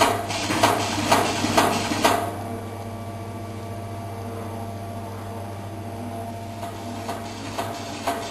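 CNC rivet machine setting rivets with sharp clicks about twice a second. About two seconds in the clicks stop and only the machine's steady hum remains, then the clicks start again faintly near the end.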